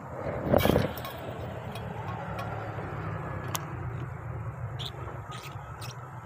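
A brief loud rush about half a second in, then a steady whir as an Abu Garcia Black Max baitcasting reel winds in line.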